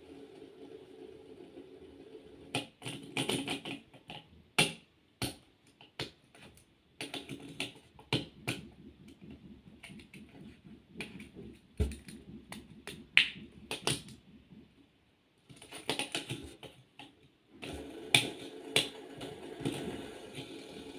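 Fidget toy being clicked by hand: sharp irregular clicks, some in quick runs and some alone, with short pauses. A steady low hum runs under much of it.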